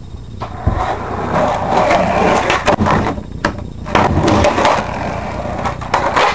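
Skateboard wheels rolling across a basement floor, with several sharp clacks of the board striking the floor.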